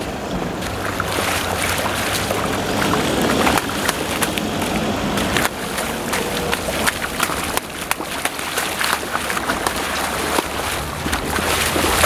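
Water splashing irregularly as a hooked stingray thrashes in the shallows at the river's edge.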